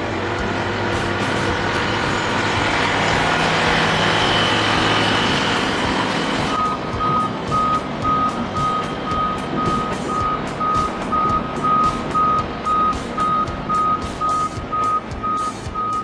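Heavy machine's diesel engine running, then about six seconds in its reversing alarm starts beeping, about two beeps a second.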